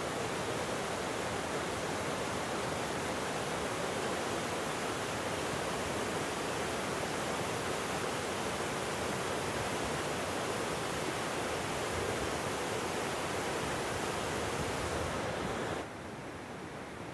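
Rocky mountain river rushing over boulders in white-water rapids: a steady, loud rush of water. Near the end it drops suddenly to a quieter, duller hush.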